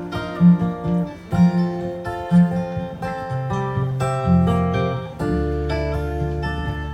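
Live country band playing an instrumental passage: strummed acoustic guitar chords over a bass line, with a regular beat about once a second.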